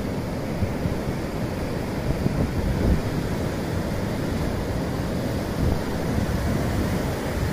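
Ocean surf washing onto the beach, with wind rumbling on the microphone.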